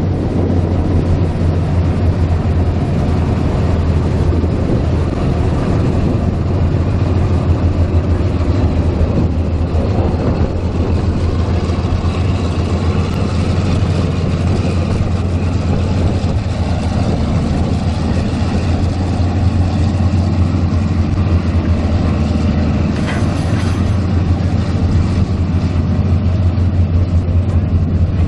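The twin Allison V-1710 V-12 engines of a P-38J Lightning running at taxi power, a loud, steady low engine note from the two propeller engines.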